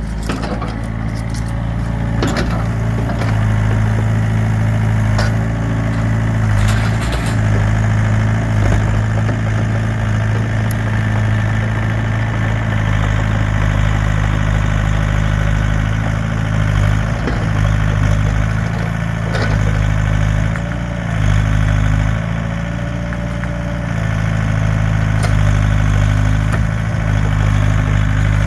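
Excavator's diesel engine running steadily, with a few sharp cracks and knocks in the first several seconds.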